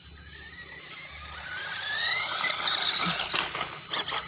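Electric motor and gear drive of a 1/18 PXtoys 9303 RC 4x4 truck whining, rising in pitch and getting louder as it speeds up. About three seconds in, its tyres crunch and clatter over gravel and small stones.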